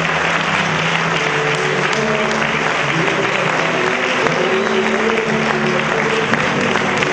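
Audience applauding steadily while music with held notes plays.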